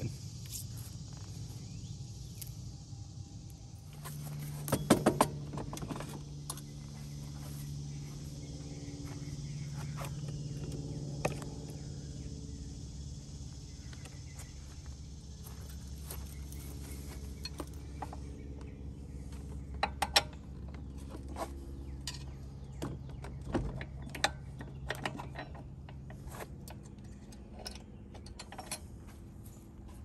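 Scattered clicks and light rattles of a winch power cable and plastic zip ties being handled and tucked into a tractor's engine bay, in clusters about 5 and 20 seconds in, over a steady low hum.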